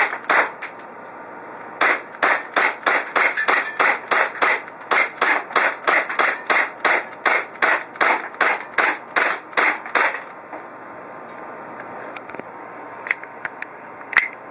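KWA/KSC gas blowback Glock airsoft pistol firing on semi-auto: two shots, a short pause, then a steady string of about three shots a second for some eight seconds, followed by a few faint clicks. The pistol is feeding without jams on its new Shooters Design polycarbonate feed ramp.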